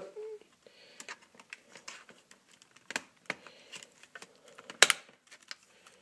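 Plastic clicks and taps of an IBM ThinkPad R51 laptop keyboard being pried loose and lifted out of its bay, with the keys rattling under the hand. A few scattered sharp clicks, the loudest a little before five seconds in.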